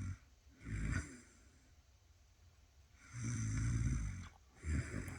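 A sleeping woman snoring in a steady rhythm: a long, low snore about three seconds in, each long snore followed by a shorter breath about half a second later.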